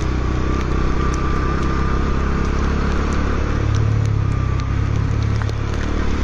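Motorcycle engine running steadily while riding, its low hum growing a little stronger about halfway through, over a steady rushing noise.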